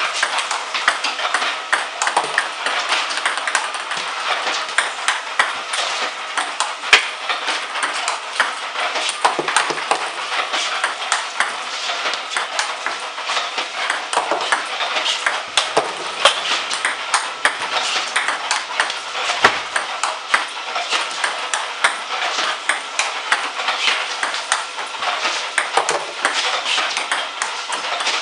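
Table tennis balls clicking in a steady run of sharp ticks, a few a second: balls fed by an iPong Master V300 robot bouncing on the table and struck backhand off the bat.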